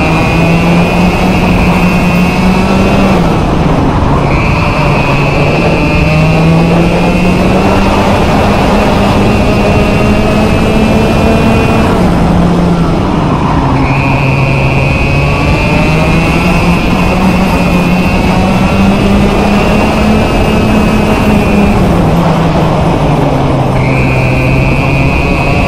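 Two-stroke racing kart engine (a Vortex ROK) at full throttle, its pitch climbing slowly along the straights and dropping sharply three times, about 3, 12 and 22 seconds in, as the kart brakes for corners, then climbing again.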